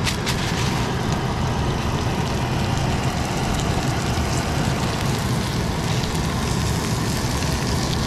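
Steady roar of a backpacking gas canister stove burning under a small frying pan, with panko-coated tuna pieces sizzling in the oil.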